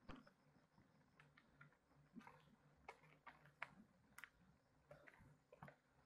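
Faint, sharp clicks and ticks at irregular intervals, about a dozen over a few seconds, over a near-silent background.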